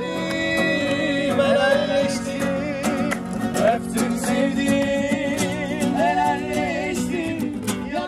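Background music: a song with a singing voice held in long wavering notes over instruments and a steady beat.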